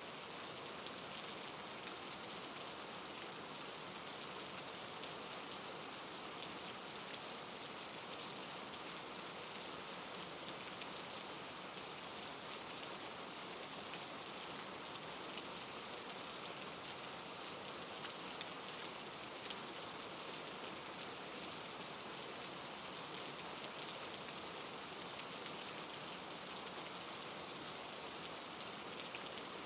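Steady soft rain falling, a constant hiss with many small drops pattering on a surface.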